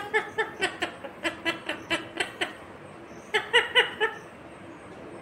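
Rose-ringed parakeet giving a run of short, quick chattering notes, about three a second, with a brief cluster of a few more past the middle.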